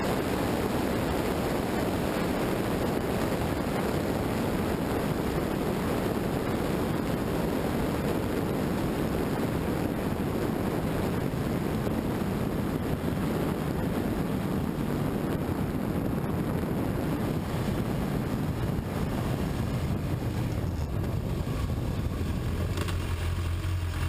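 Steady rush of wind and road noise on a low-mounted action camera's microphone as the vehicle drives on a wet road, with tyres hissing on the wet surface. Near the end the rush thins and a steady low hum comes through.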